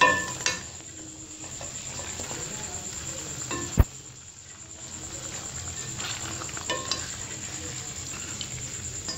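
Chicken pieces sizzling in a stainless steel kadhai as a spatula turns them, with scrapes and knocks of the spatula against the pan; one sharp knock stands out about four seconds in.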